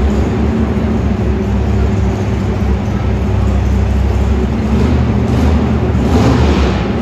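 Engine of a Chevy Pro Stock two-wheel-drive pulling truck running loud and steady while hooked to a weight sled on the pulling track.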